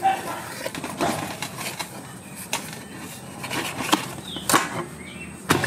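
Kitchen knife cutting through a stack of parathas on a metal plate, the blade scraping and clicking against the metal in irregular knocks, with a sharper knock near the end.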